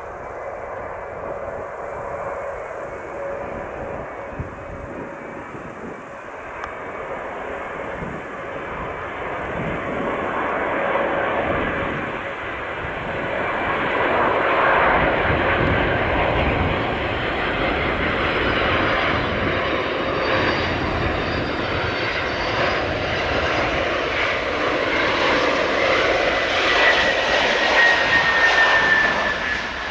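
Antonov An-124's four D-18T turbofan engines, a steady jet noise growing louder as the aircraft nears. Near the end a whine falls in pitch as it passes.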